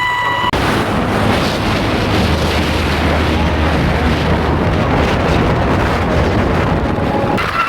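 Wind rushing over the microphone with a steady low engine drone underneath, as on a moving motorboat.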